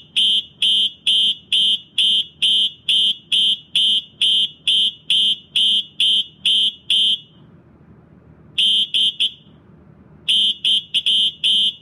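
Space Age Electronics HA24D fire alarm horn sounding in loud, high-pitched beeps, evenly spaced at about two a second, that stop about seven seconds in. After a short pause it gives three quick beeps, then near the end a faster, uneven run of beeps.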